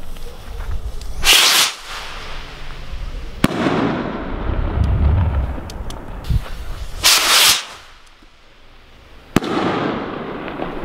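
Two varas de trueno (stick-mounted thunder rockets) fired one after the other. Each leaves with a short hissing whoosh and bursts about two seconds later in a single sharp bang; a low rumbling echo follows the first bang.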